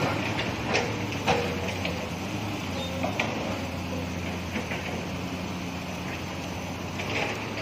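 Heavy diesel machinery engine running steadily at low revs, with a few sharp knocks in the first three seconds.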